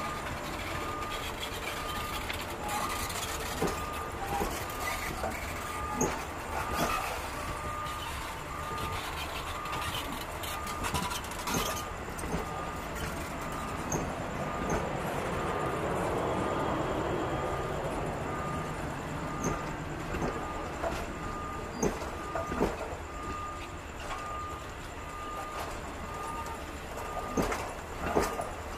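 Passenger carriages of the Eastern & Oriental Express rolling past on the rails, with scattered wheel clicks and knocks over a steady low rumble. An even electronic beeping repeats throughout.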